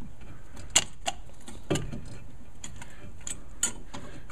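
Light metal clicks and taps from brake pads and caliper pins being handled as the pins are pushed through the pads: a handful of irregular clicks, three of them sharper.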